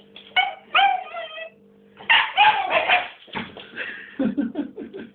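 Dog barking for its ball: a few pitched barks, then a quick run of shorter barks near the end.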